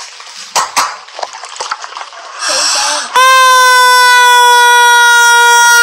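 Rubber squeeze goose toy squeezed, giving one long, loud, steady squealing honk that starts about three seconds in and barely falls in pitch. A short hiss comes just before it.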